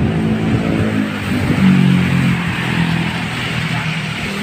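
A motor vehicle's engine running with a steady pitched drone that shifts slightly in pitch midway, over street noise.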